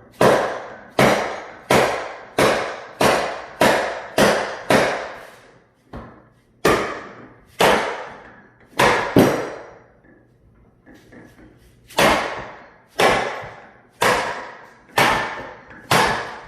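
Repeated hammer blows on a Warn 8274 winch's housing, about seventeen sharp strikes each with a short ringing decay, with a brief pause of lighter taps midway, knocking a well-sealed, gasketed joint apart.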